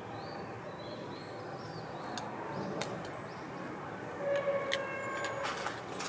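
A brambling rummaging in dry fallen leaves: a few sharp, dry clicks and rustles, with more of them from about four seconds in, over a steady background hum. About four seconds in, a steady pitched tone from something unseen sounds for about a second.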